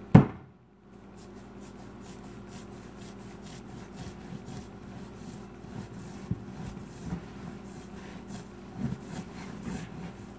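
A rolling pin knocks down onto the countertop at the start, then rolls out a ball of sugar cookie dough with soft rubbing and a few dull thuds, over a steady low hum.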